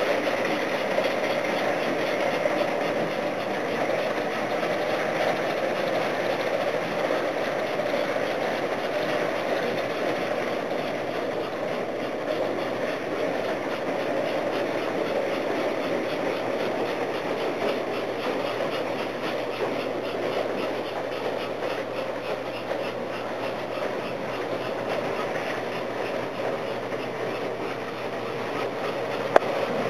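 S gauge model freight train of American Flyer gondola cars rolling steadily along two-rail track: a continuous clatter of small metal wheels clicking over the rails, with one sharp click near the end.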